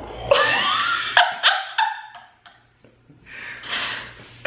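Laughter: a burst of laughing that breaks into a run of short separate pulses, followed a little later by a breathy, laughing exhale.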